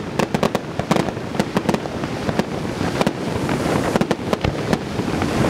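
Fireworks display: aerial shells bursting in rapid cracks and bangs, several a second, blending into a steadier crackling wash midway, with sharp cracks returning near the end.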